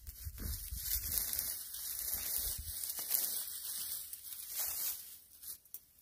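Dry dead grass and fallen leaves rustling, crackling and tearing as old weeds are pulled up by hand. It tails off near the end.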